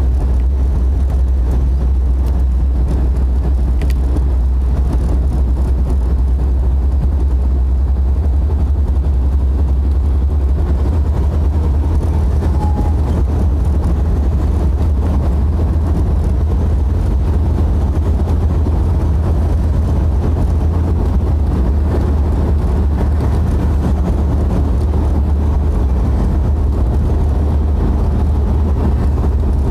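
Steady in-cabin drone of a Jeep being driven: a deep engine and road rumble with tyre noise, even throughout.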